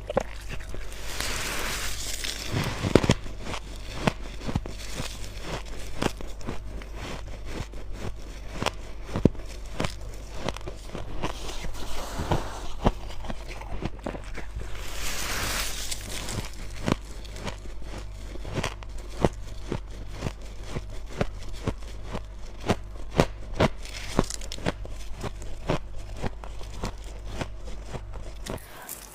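Close-miked chewing of crunchy, powdery freezer-frost ice: a dense run of small crackles and crunches, over a steady low hum.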